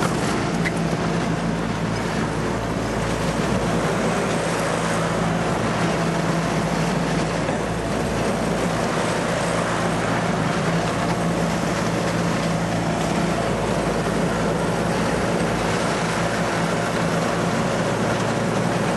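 Riding lawnmower engine running steadily under load while towing, mixed with the constant rumble of the wooden trailer rolling over a gravel lane.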